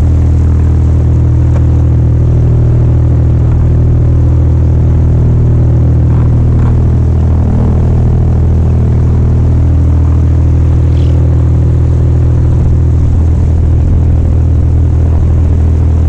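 A boat's engine running steadily at cruising speed, a constant low drone while the boat is under way.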